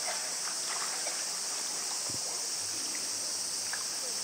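Steady, high-pitched drone of a cicada chorus, holding at one level throughout.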